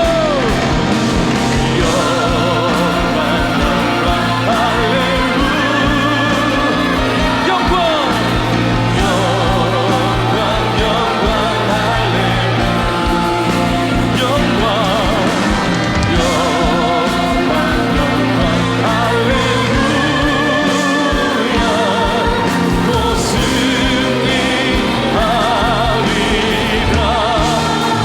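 Live worship band playing a contemporary Christian song: several singers over keyboards, electric guitar, bass and drums, with held chords and sung lines that waver in vibrato.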